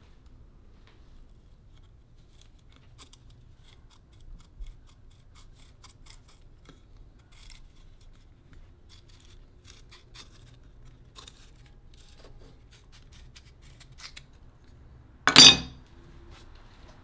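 Scattered light clicks and taps of metal hand tools on an old cleaver as its broken handle is taken apart, with one loud, sharp knock near the end.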